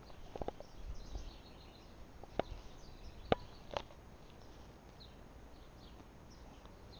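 Mare grazing on grass beside her newborn foal: a handful of sharp clicks and rustles in the first few seconds, with faint bird chirps in the background.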